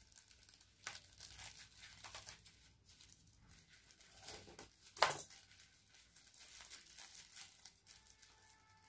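Thin plastic poly bag crinkling and rustling in the hands as it is worked open, in scattered faint crackles with one sharper, louder crackle about five seconds in.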